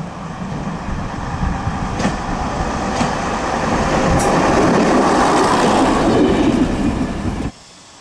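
AC Cars railbus W79978 running past at close range, growing louder as it goes by, with two sharp clicks about two and three seconds in. The sound cuts off suddenly about seven and a half seconds in.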